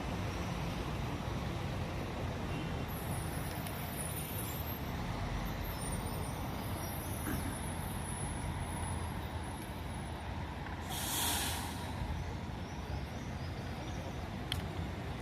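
Bus diesel engine running with a steady low rumble at a bus terminal; about eleven seconds in, a loud, short burst of compressed-air hissing from an air-brake release.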